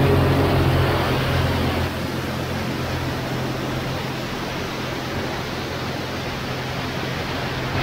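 Zenith CH 650 B light aircraft rolling along a dirt airstrip: a steady rush of wind noise on the microphone over the engine's low hum, which eases down over the first two seconds and then holds steady.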